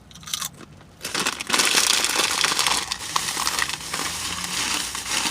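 Chips crunching loudly, close to the microphone, starting about a second in and going on as a steady crackling.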